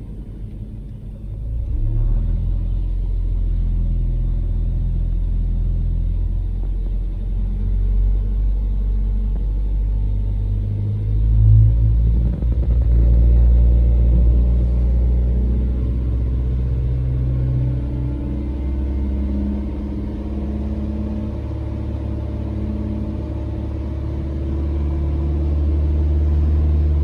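Toyota bB's engine running with a steady low rumble, its pitch shifting and the level swelling about eleven seconds in.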